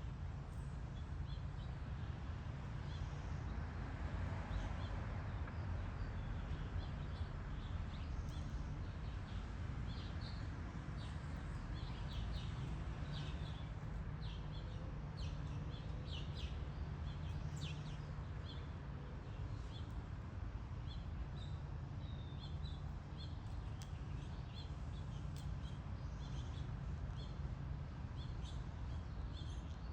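Small birds chirping in scattered short calls over a steady low background rumble.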